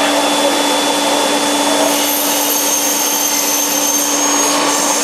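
Vacuum tube lifter's blower running steadily with a constant hum and rushing air, as the suction head holds an aluminium profile. A thin high whistle joins about two seconds in and stops shortly before the end.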